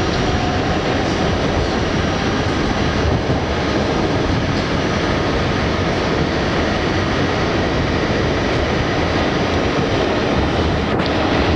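R68 New York City subway car running along the rails, heard from inside the car: a steady, loud rumble of wheels and running gear, with one sharp click near the end.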